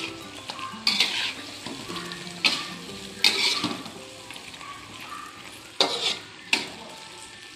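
Metal spatula scraping and knocking against a wok as chicken in soy-sauce gravy is stirred, about six sharp strokes at uneven intervals. The food keeps sizzling steadily between the strokes.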